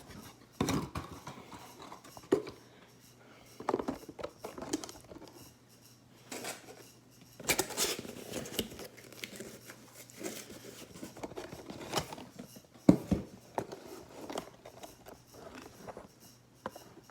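Hands handling and opening a small cardboard toy box: scattered clicks, scrapes and rustles of cardboard and packaging, with a sharp knock about two-thirds of the way through.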